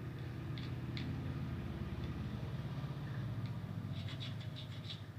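Light clicks and a quick run of small scraping ticks, about four to five seconds in, from a tool working loose makeup powder to separate the pink from the purple. A steady low hum runs underneath.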